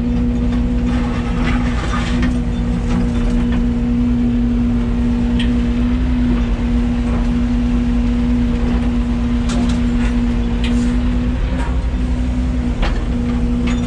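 Yanmar ViO80 mini excavator's diesel engine running steadily under load, with a constant hum that holds one pitch and a few scattered knocks as the machine works.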